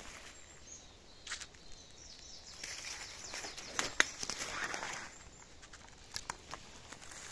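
Footsteps and rustling in dry leaf litter and twigs on a forest floor, with a few sharp snaps of twigs. The loudest snap comes about four seconds in, during a stretch of heavier rustling.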